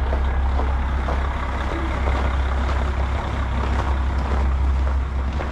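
Diesel railcar running along the line, with a steady low engine drone under the rumble of the wheels on the rails.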